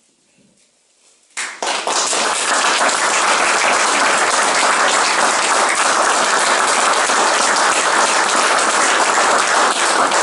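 Audience applauding: the clapping breaks out suddenly about a second and a half in and holds as a loud, dense patter.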